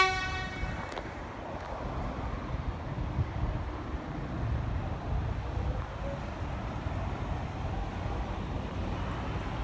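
A horn blast cuts off just after the start. Then a steady low rumble of a Melbourne X'Trapolis electric suburban train approaching in the distance, with wind noise on the microphone.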